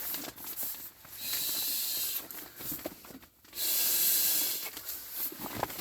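Air blown by mouth into an inflatable sleeping pad's valve: two long hissing blows, with short pauses for breath between.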